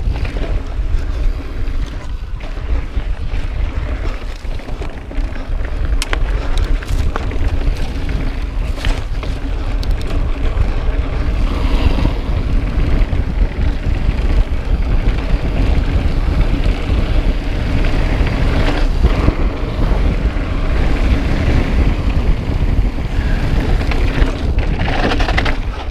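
Wind buffeting the microphone of a mountain bike riding at speed over dirt and slickrock trail, with tyre rumble and a few sharp clicks and rattles from the bike.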